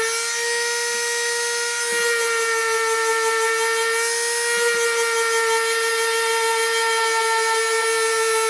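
Power tool motor running with a steady high-pitched whine, its pitch sagging slightly about two seconds in and again near five seconds, as when the tool is pressed into the work.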